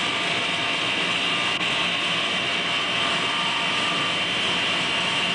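A 3/4 horsepower induction motor spinning a 2900-watt generator, running steadily on mains AC power with a steady high whine.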